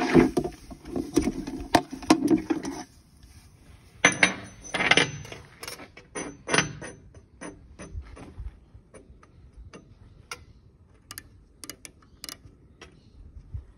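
Metal handling noises as the liquid-nitrogen-frozen steel bush is lifted out and set on a steel bench, with knocks and scrapes in the first few seconds. Then a run of light, irregular clicks as an outside micrometer is wound down onto the bush.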